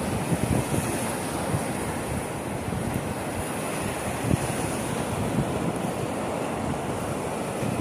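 Small Caspian Sea waves breaking and washing up a sandy shore in a steady wash, with wind buffeting the microphone in low, gusty rumbles.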